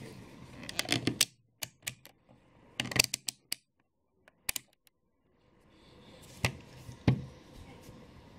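Irregular sharp clicks and taps, some in quick clusters, with two heavier knocks near the end.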